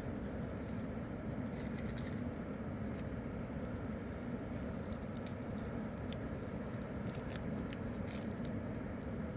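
Steady rushing of a fast mountain river, with small clicks and rattles scattered throughout.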